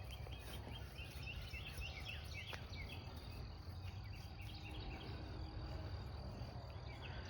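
Faint farmyard ambience: small birds chirping with short repeated notes over a steady low rumble, and a faint high insect buzz in the second half.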